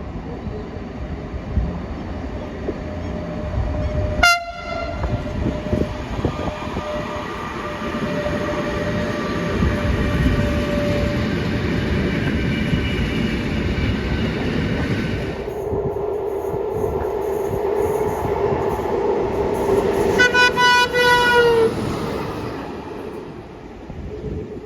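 Swedish train passing with the rumble of wheels on track, sounding its horn: a short toot about four seconds in, then a longer blast from about fifteen seconds that steps up to a higher, louder tone near twenty seconds before cutting off.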